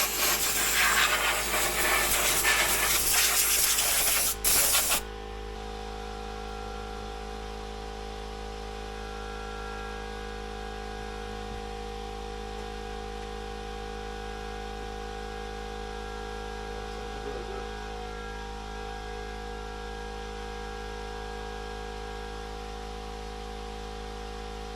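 Loud, even spraying hiss for about five seconds, broken briefly about four seconds in, then a steady hum with several fixed tones for the rest.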